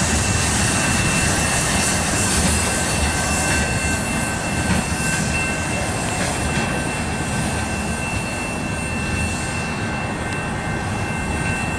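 Freight cars' steel wheels rolling over the rails: a steady rumble with a thin, high, steady ring over it. The highest sounds thin out over the last few seconds as the last car, a covered hopper, moves away.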